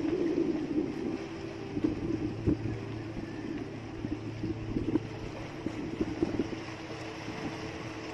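Steady low hum of a small engine aboard a bamboo outrigger fishing boat, with scattered knocks and thumps as a tuna is hauled in on a handline.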